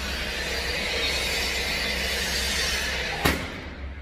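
Cordless framing nail gun pressed against timber: a steady whirring hiss for about three seconds, then one sharp shot as it drives a nail into the stud and plate.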